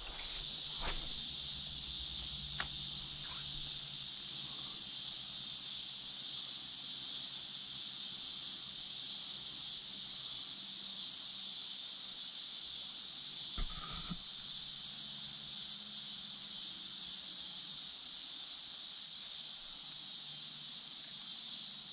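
Steady high-pitched chorus of insects trilling, with a regular repeating chirp running through the middle stretch.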